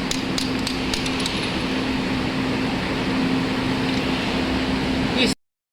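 Ford engine idling steadily, with a fast knocking tick of about four a second that is audible through the first second or so. This is the idle knock being diagnosed. The sound cuts off abruptly near the end.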